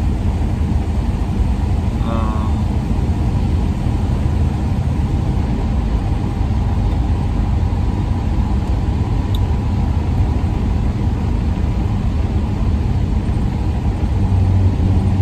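Steady low rumble of a van's engine and tyre noise, heard from inside the cab while driving along at a constant pace.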